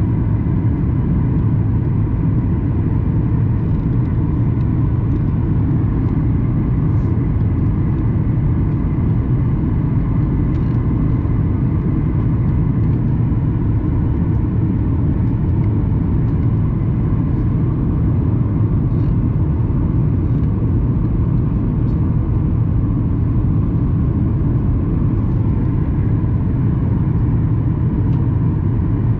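Steady low cabin rumble of a Boeing 737-800 in descent, airflow and its CFM56-7B engines heard from inside the passenger cabin, with a faint steady whine over it.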